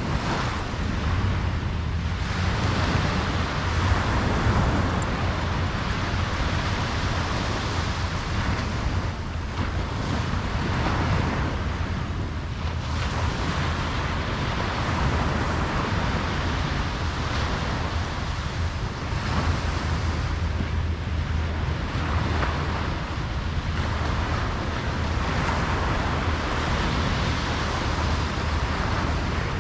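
Ocean waves breaking and washing up on a beach, the surf swelling and easing every few seconds over a steady low rumble, with some wind on the microphone.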